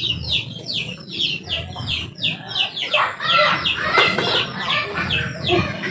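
Chickens calling: a fast, steady run of high, falling peeps, about four or five a second, with lower calls mixed in from about three seconds in.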